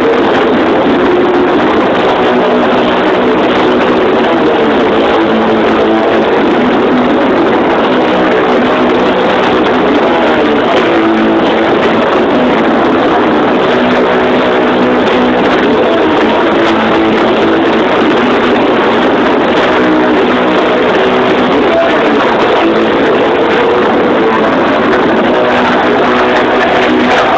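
Doom metal band playing live: heavily distorted electric guitar over drums, one loud, dense, unbroken wall of sound.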